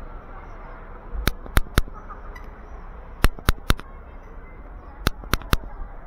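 Nine sharp knocks or cracks in three quick groups of three, one group about every two seconds, over steady street background noise.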